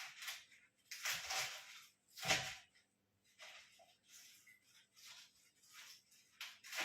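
Faint kitchen handling sounds while a salad is prepared: a few brief scrapes and rustles, with a soft knock a little after two seconds in.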